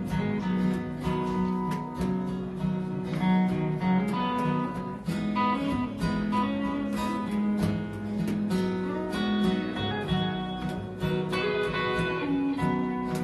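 Acoustic and electric guitars playing an instrumental break of a slow song: strummed chords with sustained single notes ringing over them, no singing.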